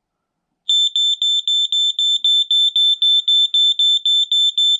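A 1993 Firex FX1218 smoke alarm going off. Its piezo horn starts under a second in and beeps loudly and rapidly, about four high-pitched pulses a second.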